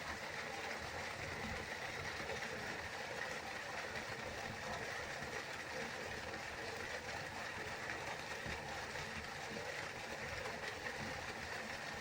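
River flowing: a steady, even rush of running water.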